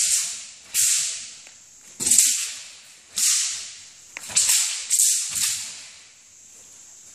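Chinese dao sabre cutting through the air: about six sharp swishes, each starting suddenly and trailing off over about half a second, with several coming close together past the middle.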